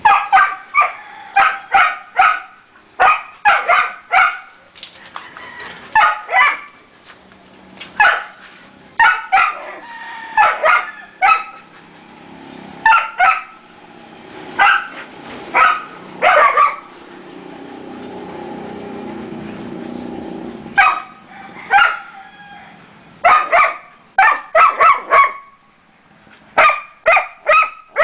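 Dog barking in quick runs of several sharp barks, over and over, with short pauses between the runs.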